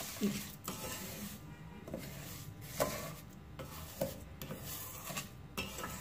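Wooden spatula scraping round a stainless steel pot, stirring granulated sugar in melted ghee in repeated gritty strokes, about one or two a second, while the sugar melts toward a light caramel.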